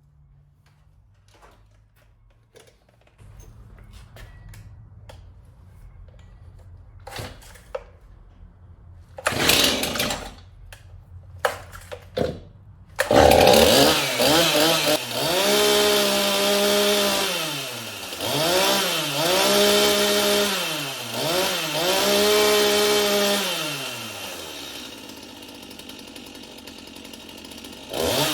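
A freshly tuned-up Stihl MS251 C two-stroke chainsaw being test-started: some knocks and pulls, then the engine catches about 13 s in. It is revved up and down about four times, then settles to idle before revving again at the end.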